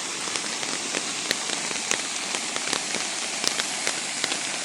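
Steady rain falling, with many sharp drop hits scattered over a constant hiss.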